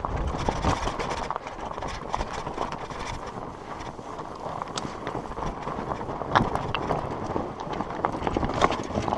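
Surly Moonlander fat bike rolling over a rocky trail: a steady rough rumble of fat tyres on loose rock, with the bike rattling and scattered sharp clicks and knocks as it goes over stones.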